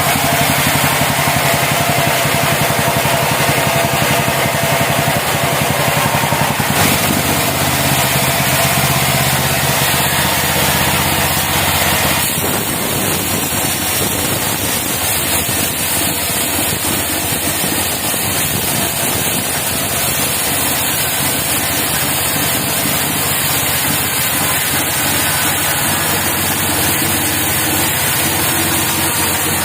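Engine of a portable band sawmill running steadily. Its sound changes about seven seconds in and again about twelve seconds in.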